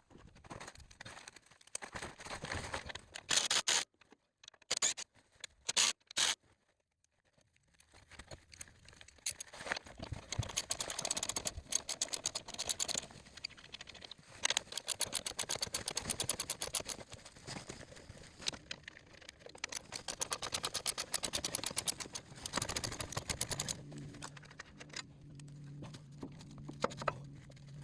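Ratchet wrench on stacked extensions clicking in long rapid runs as it works the stabilizer bar bushing bracket bolts under a 2016 RAV4, with a few sharp metal knocks early on and a steady low hum near the end.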